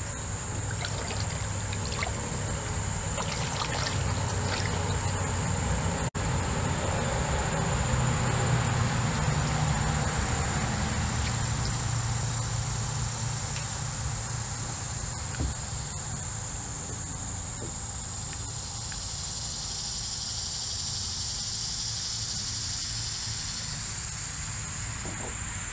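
Shallow creek water trickling and sloshing around a wading angler's legs, over a steady high-pitched drone of insects.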